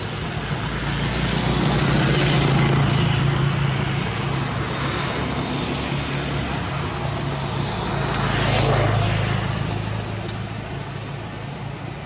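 Road vehicles passing with a low engine hum, one swelling and fading about two seconds in and another rising and falling around eight and a half seconds in.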